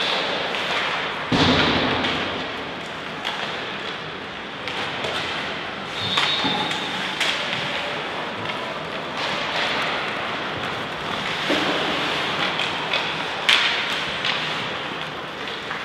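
Sounds of team-game play in an echoing hall: irregular sharp knocks and thuds, the loudest about a second in, over steady background noise.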